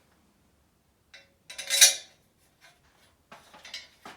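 Metal clinking of hand tools and loose motorcycle parts being handled: a sharp, ringing clink a little under two seconds in, then lighter clattering near the end.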